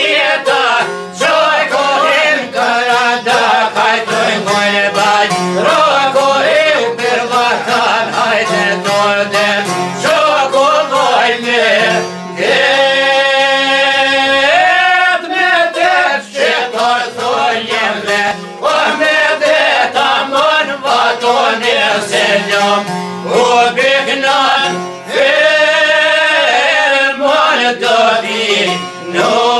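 Men singing an Albanian folk song in unison to long-necked lutes, with quick plucked strokes running under the voices and a long held sung note about halfway through.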